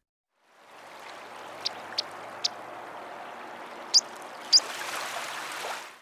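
Plover giving five short, high-pitched calls, three lighter ones in quick succession and two louder ones later, over a steady background hiss.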